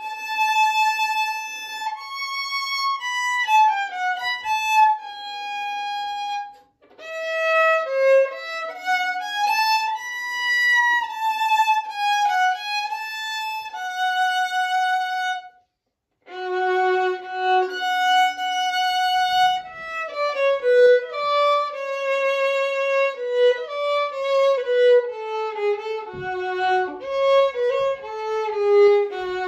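Solo violin playing a Uyghur melody, a single bowed line with slides and ornaments, phrased with two short pauses: about seven seconds in and about sixteen seconds in.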